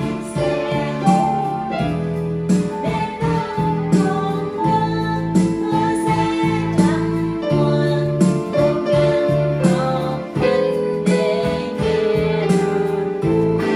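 Electronic keyboard music: a melody of held notes changing every second or so over a steady low accompaniment.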